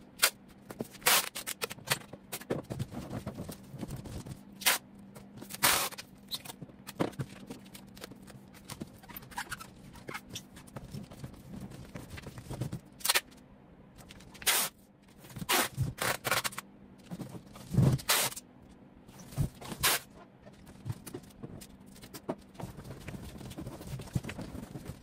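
Scattered scrapes, rustles and knocks of clothes and other items being handled and packed into a large cardboard cargo box, some sharp and some lasting a moment, at irregular intervals.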